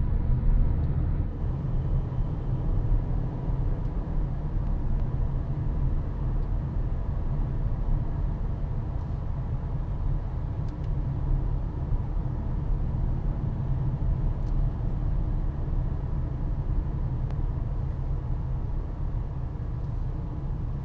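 Wind and road noise inside the cabin of a Honda HR-V on the move: a steady, low, even rumble.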